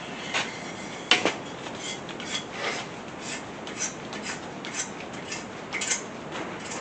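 Metal hand tools working in the head bolt holes of a cast-iron Chevy small block 350: irregular metallic clicks and short scrapes as the threads are chased, the loudest click just over a second in.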